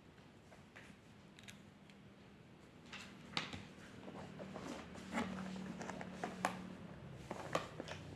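Drawing tools working on paper: faint, irregular light clicks, taps and short scrapes that grow busier from about three seconds in, over a low steady hum.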